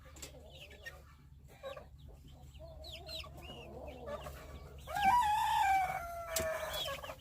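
Chicks peeping with short high chirps, then a rooster crows once, a long call of about two seconds that starts about five seconds in and is the loudest sound.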